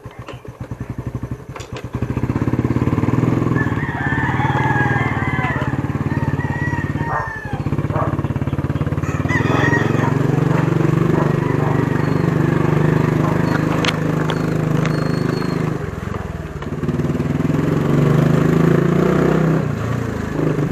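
Motorcycle engine idling with an even, pulsing beat, then pulling away about two seconds in and running steadily as the bike rides along. Roosters crow in the background.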